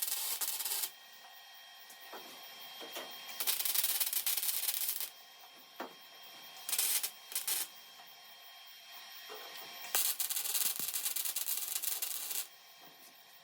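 Welder stitch welding a steel quarter panel in short bursts of crackling arc. There is a burst ending about a second in, a longer one in the middle, two brief blips, and a final burst of about two and a half seconds, with quiet pauses between.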